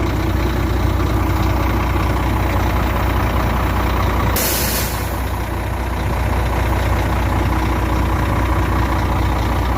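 Truck's engine idling steadily, with one short hiss of compressed air about four and a half seconds in, while a deflated tyre is pumped up from the truck's air supply.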